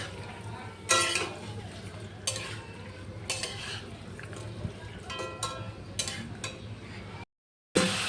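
Metal utensil stirring chicken curry in a pan over a steady light sizzle. Scraping strokes come every second or so, several of them with a ringing metallic clink. The sound cuts out briefly near the end.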